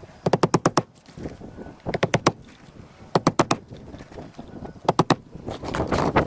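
Hammer driving roofing nails into shingles: four quick bursts of about five sharp strikes each, with a rustling scrape near the end.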